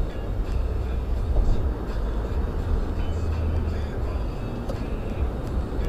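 Steady low rumble of tyre and road noise with engine drone from a car cruising on a highway, heard from inside the cabin.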